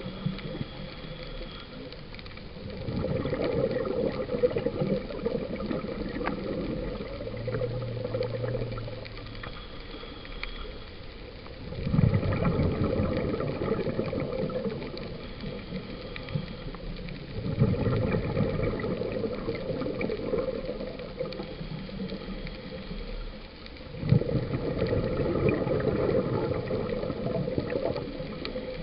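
Scuba regulator breathing, heard underwater: four bursts of bubbling exhaust, each starting suddenly and lasting a few seconds, several seconds apart.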